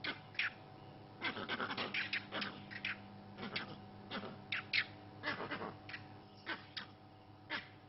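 Vervet monkeys calling: a string of short, sharp calls at irregular intervals, some falling in pitch, the troop's alarm calling at a leopard.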